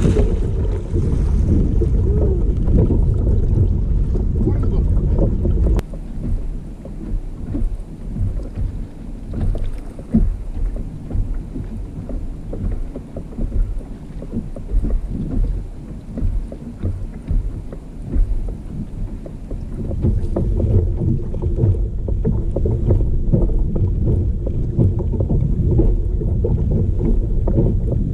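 Wind buffeting the microphone, strongest for the first few seconds and again in the last third, with water lapping and slapping against a kayak's hull in between.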